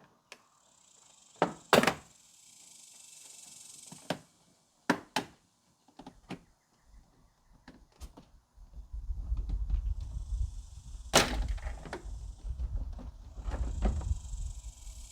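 A plastic interior trim panel being pulled off a car's rear side, its clips giving way with a series of sharp knocks and snaps, the loudest about eleven seconds in. A low rumble runs through the second half.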